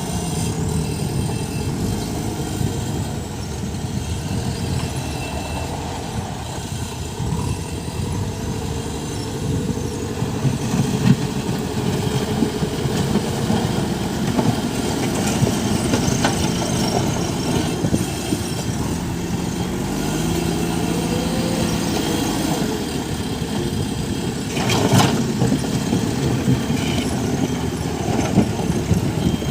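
JCB backhoe loader's diesel engine running steadily, its pitch rising and falling as the machine works, with a single sharp knock near the end.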